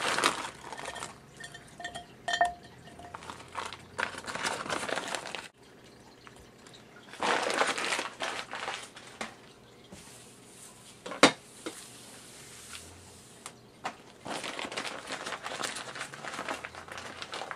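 Bag of frozen broccoli rustling and crinkling in bursts as the florets are tipped out, with a single sharp click about eleven seconds in.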